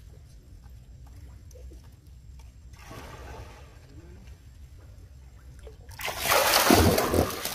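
A pig-tailed macaque moving through a shallow pool: faint lapping water, a soft slosh about three seconds in, then a loud splash lasting about a second near the end.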